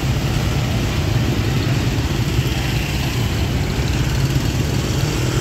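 A vehicle engine idling nearby, a steady low rumble.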